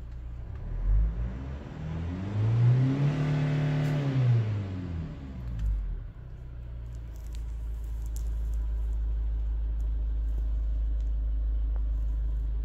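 2016 SsangYong Korando's engine revved in Park: a short blip about a second in, then a longer rev that climbs and falls away between about two and five seconds. It then settles into a steady idle.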